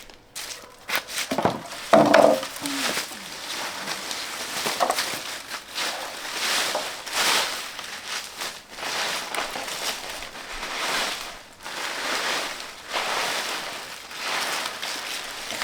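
Rustling and crinkling of plant leaves and stems in a series of repeated swishes about once a second. A few sharp snaps come in the first two seconds, and a brief higher-pitched sound comes about two seconds in.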